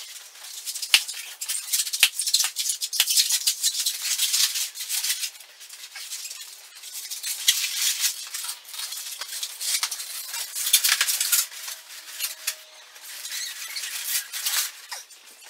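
Inflated latex twisting balloons rubbing and squeaking against each other as they are handled, twisted together and pushed into a balloon sculpture: an irregular run of crackles and squeaks.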